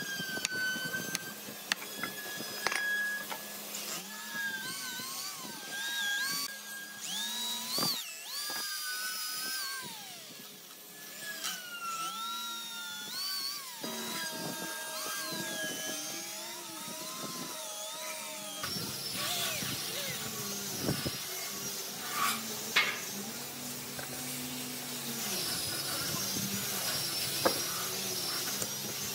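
Electric drill boring into an old blackened wooden beam, running steadily, with a few knocks and high gliding chirps over it.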